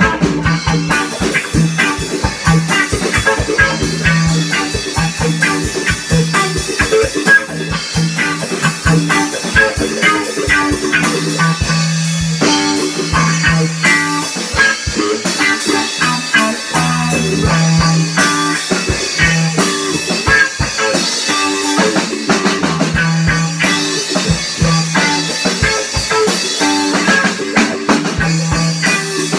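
A guitar and a drum kit played live together, a two-piece band jamming. The drums keep up a busy run of hits under repeated guitar riffs.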